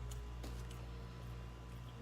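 Quiet chewing and mouth sounds from eating a chili cheese dog, a few soft clicks over a steady low hum.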